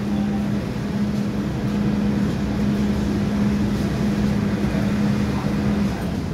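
MTR M-Train standing at a platform with its doors open: a steady low hum over the rumble of the train and station, the hum stopping shortly before the end.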